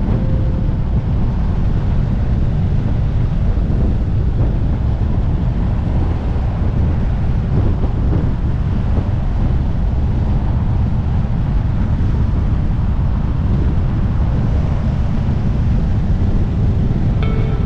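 Wind buffeting a motorcycle-mounted action-camera microphone at riding speed: a steady, heavy low rumble with the bike's running sound buried in it.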